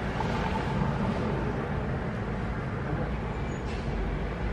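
Steady road and engine noise of a car being driven.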